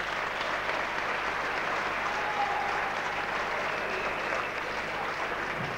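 Arena audience applauding, a steady dense clatter of clapping.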